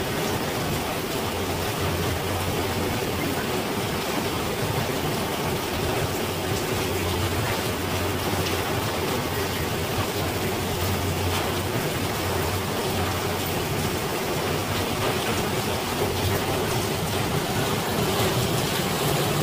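Steady rain, an even unbroken hiss with a faint low hum underneath.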